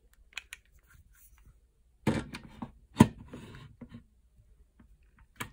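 Light plastic handling ticks, then two knocks about two and three seconds in, the second one sharp and the loudest, followed by brief rustling. This is an Anker PowerCore Fusion Power Delivery charger's wall plug being pushed into a power strip socket.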